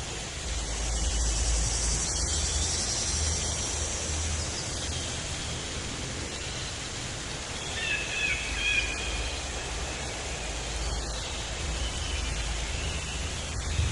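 Steady outdoor forest ambience: an even hiss with a low rumble underneath. A bird gives a few short warbling calls about eight seconds in.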